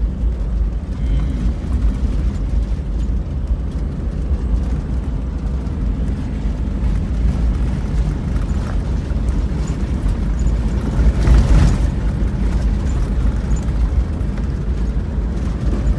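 A vehicle driving along a rough dirt track, heard from inside the cabin: a steady low rumble of engine, tyres and wind, with a louder swell lasting about a second near eleven seconds in.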